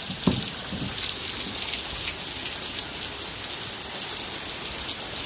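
Heavy rain pouring down, a steady hiss of rain falling on surfaces, with a brief thump just after the start.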